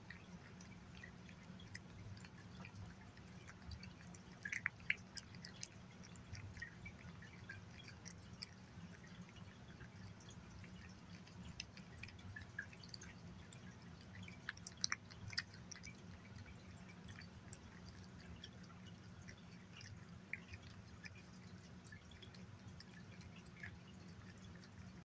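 A cat licking and chewing wet chicken pâté from a glass plate: faint, irregular wet smacks and tongue clicks, with louder runs of them about five seconds in and again around fifteen seconds, over a steady low hum.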